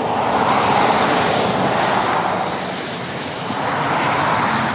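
Rushing noise of a passing vehicle, swelling about a second in, easing, and swelling again near the end.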